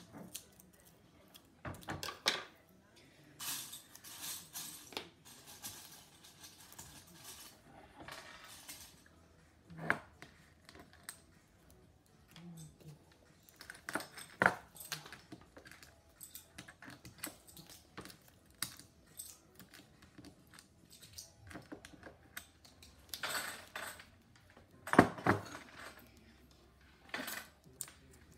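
Handling sounds of tape crafting at a table: several stretches of noisy ripping as tape is pulled from the roll, and scattered sharp knocks as the tape roll and scissors are handled and put down, the loudest knock near the end.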